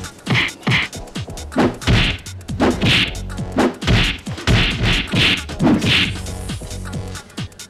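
Fight sound effects for a staged brawl: a rapid series of punch and slap hits with whooshes, about a dozen blows in quick succession.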